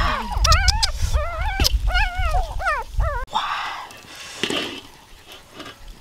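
An animal crying out in a string of short, high, wavering calls for about three seconds, over a low rumble.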